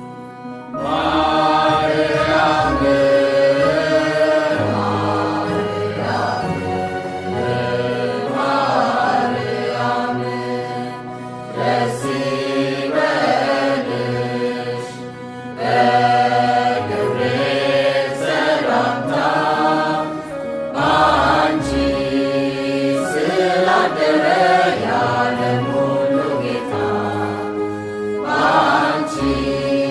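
Ethiopian Orthodox mezmur (hymn to Mary) sung in Amharic, in chant-like phrases over a steady low accompaniment; the singing comes in about a second in.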